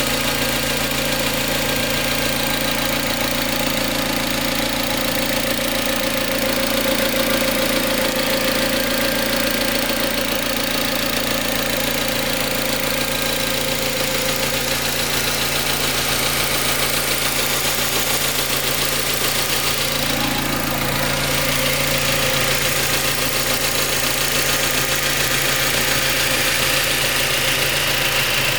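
Mazda MX-5 Mk3 engine running steadily at idle with a rattling noise whose cause the owner is trying to diagnose. The tone shifts briefly about two-thirds of the way through.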